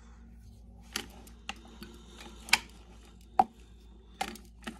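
A handful of sharp, irregular clicks and taps from AAA batteries being handled and pressed into an electric grinder's plastic battery holder. The loudest come about two and a half and three and a half seconds in.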